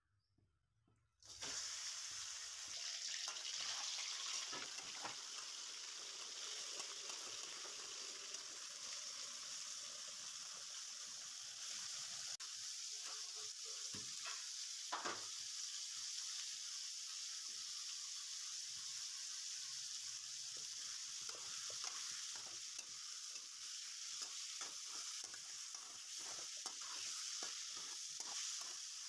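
Boneless chicken pieces hitting hot oil in a metal wok and sizzling, starting suddenly about a second in and running steadily. A metal spoon scrapes and taps against the wok as the chicken is stirred, more often near the end.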